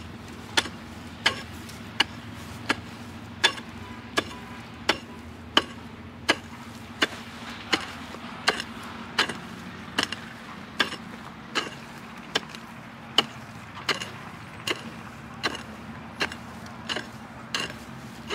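Pickaxe striking dry earth in a steady, even rhythm, about three short chopping strikes every two seconds, digging out a shallow metal-detector target.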